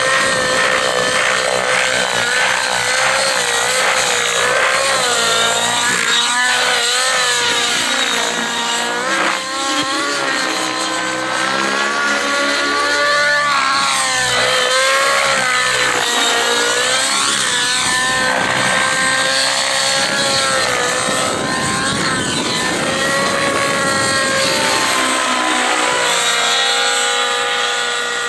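Rave ENV 90 RC helicopter's nitro glow engine and rotor running hard through aerobatic flight. The engine note wavers and bends up and down over and over, with rising and falling sweeps as the helicopter passes.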